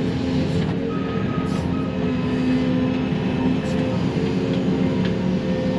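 Excavator's diesel engine running steadily under hydraulic load as the grapple swings and grabs brush, heard from inside the closed cab, with a few faint clicks.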